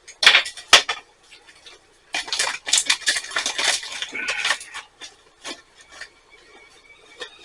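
Small clicks and clinks of a metal tea ball infuser being closed and handled, two sharp clicks at the start, then a couple of seconds of scraping and rubbing.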